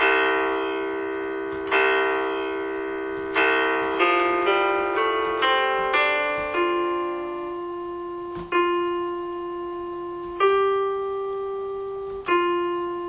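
Background music on solo piano: three slow chords, then a quick run of notes, then single notes left to ring out and fade.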